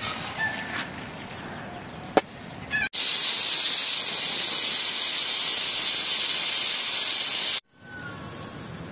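Pressure cooker on the fire venting steam: a loud, steady hiss that starts abruptly about three seconds in and cuts off suddenly nearly five seconds later.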